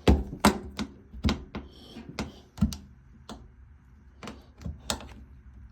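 Irregular sharp clicks and knocks of small hard objects being handled, about ten in all, the loudest near the start.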